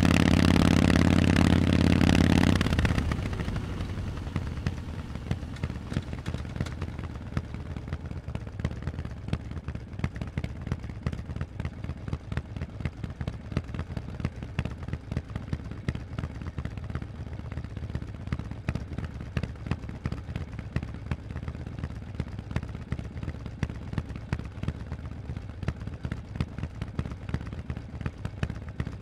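Harley-Davidson Forty-Eight's air-cooled 1200 cc V-twin through Vance & Hines exhausts, running loud and steady for about two and a half seconds, then dropping off throttle. It settles to a lumpy idle of evenly spaced exhaust pulses.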